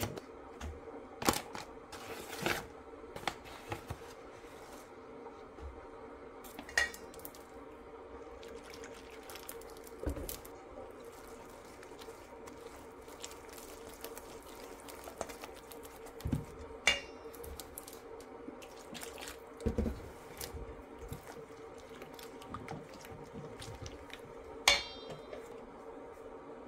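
Buckwheat-flour batter being mixed with a spoon in a stainless steel bowl: scattered knocks of the spoon on the bowl, three of which ring out as clinks, over a steady hum.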